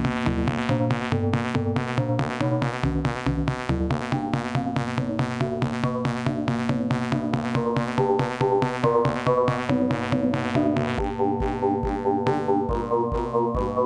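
Electronic music: synthesizer notes over a steady, even drum-machine beat, with a deep pulsing bass coming in about eleven seconds in.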